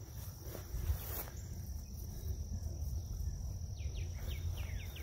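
Open pasture ambience: a steady high insect drone under a low rumble, with a few quick falling bird chirps about four seconds in.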